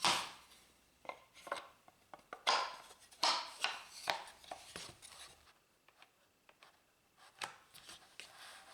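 A run of irregular knocks and short scrapes of wooden jig parts being handled on a workbench. The loudest knock comes right at the start, then a cluster of them follows over the next few seconds, with one more near the end.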